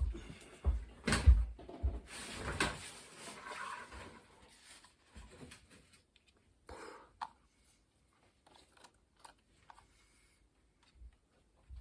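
Scattered knocks and thumps of objects being handled, loudest in the first two seconds, with a rustling stretch just after and a few faint clicks later.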